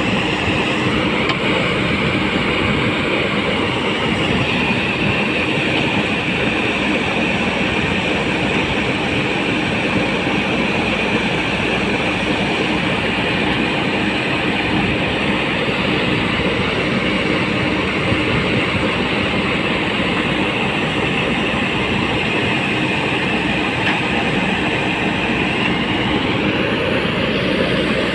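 JCB 3DX backhoe loader's diesel engine running steadily at a constant loud level.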